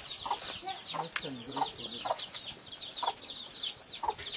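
Chickens clucking at intervals, with a steady stream of quick, high chirps over them.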